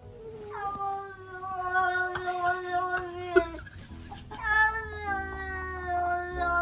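Domestic cat yowling in two long, drawn-out cries, each about three seconds and sagging a little in pitch. A single sharp knock comes between the two cries.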